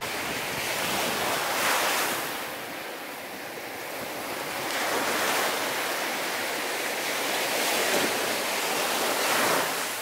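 Small waves breaking and washing up a sandy beach, the surf swelling and easing several times.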